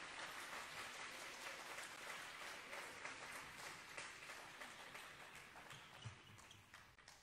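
Small audience applauding, a spread of scattered claps that slowly dies away toward the end. A soft low thump about six seconds in.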